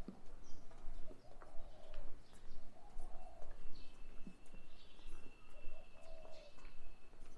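Doves cooing: a low, soft coo of about half a second, repeated every second or two, with small birds chirping. A thin, steady high tone runs for about four seconds in the middle.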